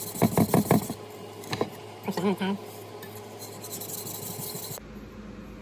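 Steel kitchen knife blade rasping across a wet water stone in repeated sharpening strokes, to raise a burr on the edge. The strokes are loudest in the first second, and the grinding stops suddenly near the end.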